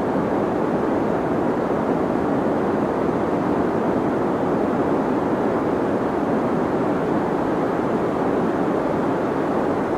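Steady deep white noise for sleep: an even, unchanging hiss weighted toward low and middle pitches, with little treble.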